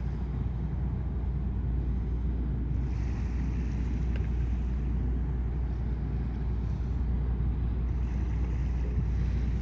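Passenger ship MS Helgoland under way at low speed, its engines making a steady deep rumble.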